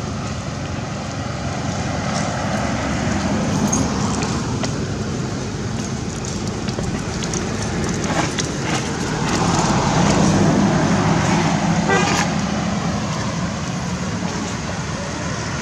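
Steady hum of a motor vehicle's engine, swelling louder about ten seconds in before easing off again.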